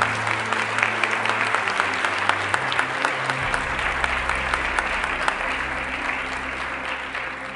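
Audience applauding, a dense patter of many hands clapping, with soft background music underneath. The applause fades away near the end.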